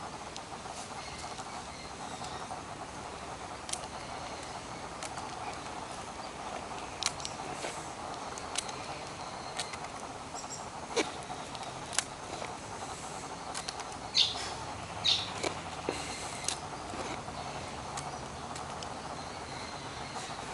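Peacock pecking at food, its beak making scattered sharp taps, over a steady outdoor background hum. Two brief high squeaks come about two-thirds of the way through.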